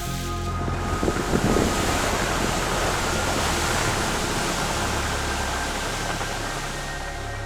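Designed ice sound effect: a long rushing hiss that swells in the first second or two, with some crackling near the start, then slowly dies away.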